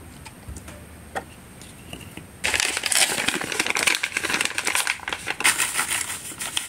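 A paper drink-mix packet being handled, then torn open and crinkled: a few faint clicks at first, then a dense crackling rustle that starts suddenly about two and a half seconds in and keeps going.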